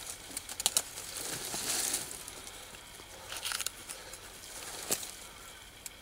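Knife cutting at a deer's neck to take off the head, with crackling and rustling of hide and dry leaves. There are a few sharp clicks, a longer scraping swell about a second in, and another short burst of scraping about halfway.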